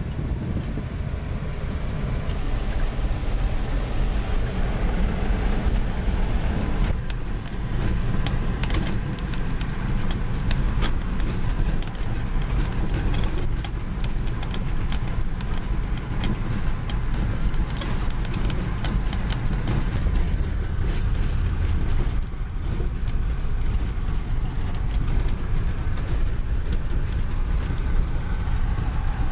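Steady low rumble of a vehicle driving over a dirt road, heard from inside the cab. From about seven seconds in there are frequent clicks and rattles.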